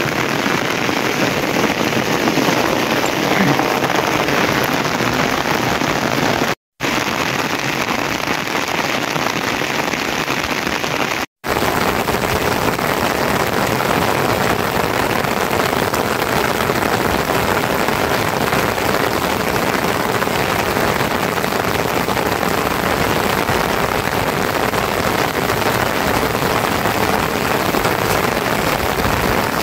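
Steady rain falling, an even dense hiss that cuts out for an instant twice, about 7 and 11 seconds in.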